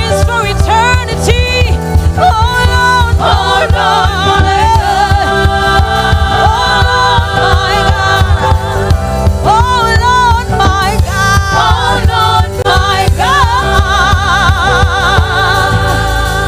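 A woman sings a gospel worship song into a handheld microphone over a backing of bass and drums. Her long held notes waver with vibrato towards the end.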